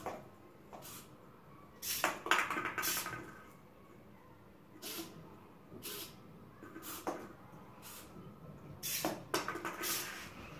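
Plastic balls clattering down a clear plastic chute and dropping into a clear plastic bowl. There are two loud bursts of knocks with a brief ringing rattle, about two seconds in and near nine seconds, and lighter single knocks and clicks in between.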